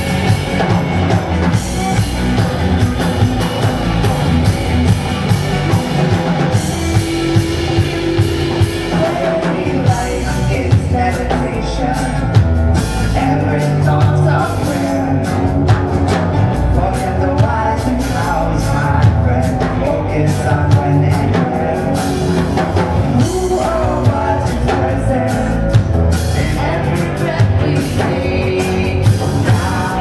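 Live rock band playing: drum kit, electric and acoustic guitars, with a voice singing.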